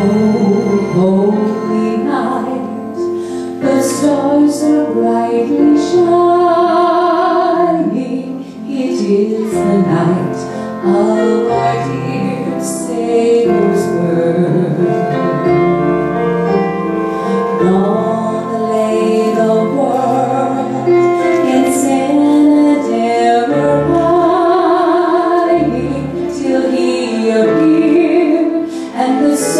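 A woman singing a solo through a handheld microphone and sound system, over instrumental accompaniment, her held notes wavering with vibrato.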